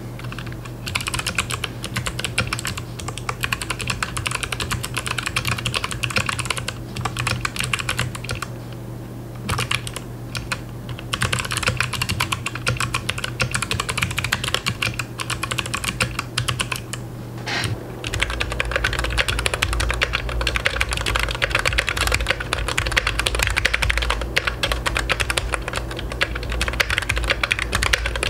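Fast continuous typing on a custom 64-key mechanical keyboard (GK64XS board in a Vortex VX64 case) with PBT keycaps and foam under the PCB, a dense run of key clacks broken by a few short pauses. A steady low hum sits beneath it.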